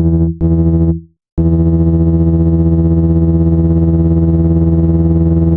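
Synthesized low buzzing tone built on 165 Hz and its octaves, played to vibrate water out of a phone speaker. It sounds as two short notes, a brief gap, then one long held note with a fast pulsing ripple.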